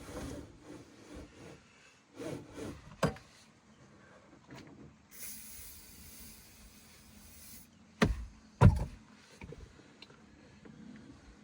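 Car seatbelt webbing being pulled out and rubbed down with a cleaning product, sliding and rustling through its guide. About five seconds in a steady hiss lasts a couple of seconds, and two sharp knocks follow close together about eight seconds in.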